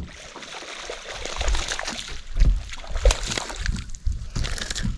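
Water splashing and sloshing with scattered knocks and low thumps, as a small hooked largemouth bass thrashes at the surface while it is brought in to the boat.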